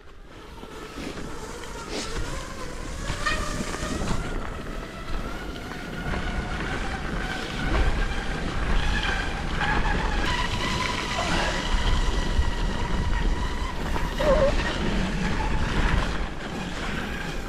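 Waxless fish-scale cross-country skis gliding over snow, the scales rubbing against the snow in a steady whine of several held tones that drift slightly in pitch. Wind rumbles on the microphone underneath.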